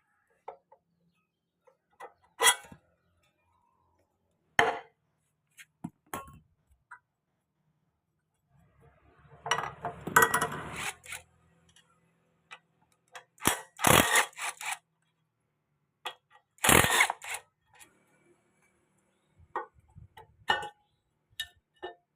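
Intermittent metal clinks, knocks and scrapes of tools and engine parts being handled, with a longer rasping stretch about ten seconds in and two sharper, louder hits a few seconds later.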